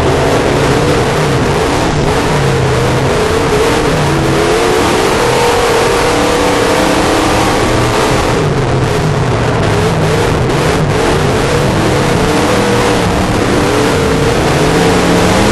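Race car engine being driven hard on a dirt autocross course, its revs repeatedly climbing and falling as the driver accelerates and lifts through the turns, under a loud rush of noise.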